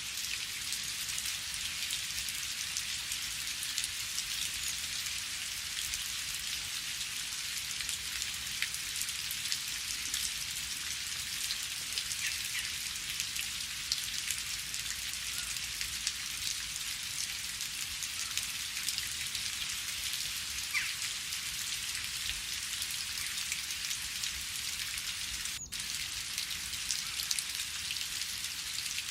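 Steady rain falling, with many small individual drops ticking through a constant hiss. A single sharp click cuts through near the end.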